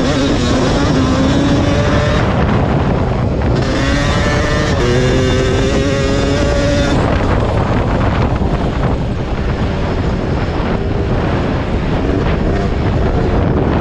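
1991 Yamaha WR250's 250 cc two-stroke single-cylinder engine revving hard on a motocross track, its note climbing as it pulls through the gears and held high about four to seven seconds in, then choppier and lower as the throttle is worked. Wind buffets the bike-mounted microphone throughout.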